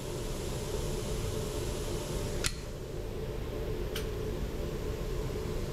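Steady hum of an indoor shooting range's ventilation fans, with two faint sharp clicks about two and a half and four seconds in.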